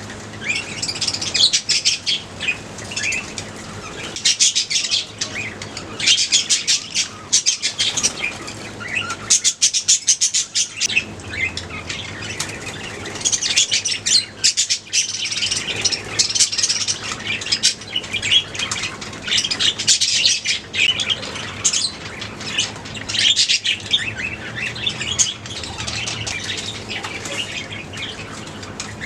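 A colony of budgerigars chattering and chirping continuously, many birds calling over one another in a busy stream of short, high notes.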